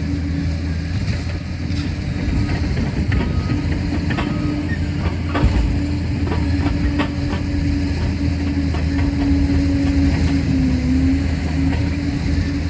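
Liebherr PR 746 crawler dozer's diesel engine running steadily under a steady whine, with scattered clanks and knocks from the tracks and work, one louder knock about five and a half seconds in.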